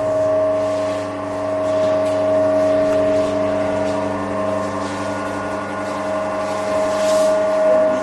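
Steady machine hum with a constant high whine during the cooling stage of a plastic pipe butt-fusion weld.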